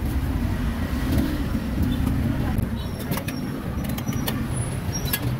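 Steady low rumble of street traffic, with a few sharp metal clicks about halfway through as steel tongs knock against the meat hooks.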